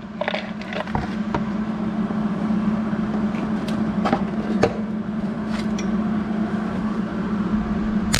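Welder laying a blob of weld to fix a nut onto a broken bolt stud: a steady electric hum with crackling and scattered clicks, and a brief sharp hiss near the end.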